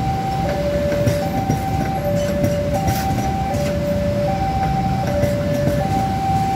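Level-crossing warning alarm sounding a steady two-tone high-low signal, the tones swapping about every three-quarters of a second, which warns that a train is crossing. Under it, passenger train carriages rumble past with short wheel clacks.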